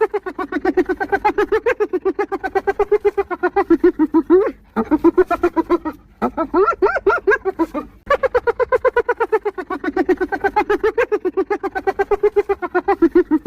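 Spotted hyena giggling, the 'laugh': long runs of rapid, high-pitched pulsing notes, about nine a second, broken by a few brief pauses, with a stretch of rising notes in the middle.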